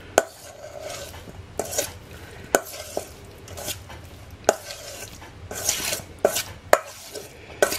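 A spoon stirring boiled potato cubes in a stainless steel mixing bowl. The spoon clinks and scrapes against the bowl's side at irregular moments, roughly once a second.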